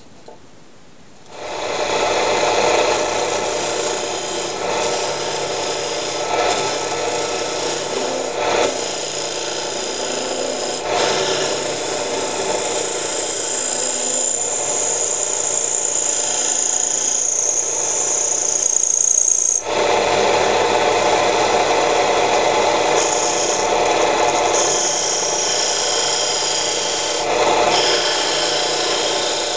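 Homemade wood lathe spinning a small wooden workpiece while a hand-held tool cuts into it: a steady, harsh scraping that starts about a second and a half in. It breaks off for a moment about two-thirds of the way through, then carries on.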